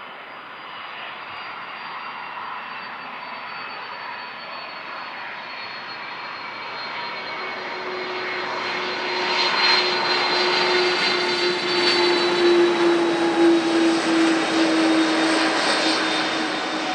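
Airbus KC-30A tanker's twin turbofan engines whining as it rolls along the runway after landing. The sound grows louder as it passes close, and the engine tones fall slowly in pitch as it goes by.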